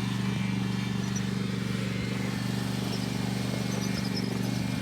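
Lawn mower engine running at a steady speed as the mower drives the course, with an even low hum that holds level throughout.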